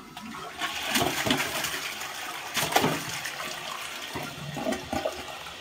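Toilet flushing, water rushing through the bowl, loudest about a second in and again near three seconds.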